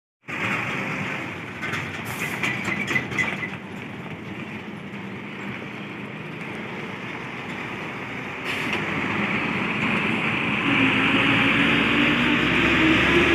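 Articulated LPG tanker truck driving slowly past close by: steady engine and tyre noise that grows louder over the last few seconds, with a low engine note. A short run of rattling clicks comes about two to three seconds in.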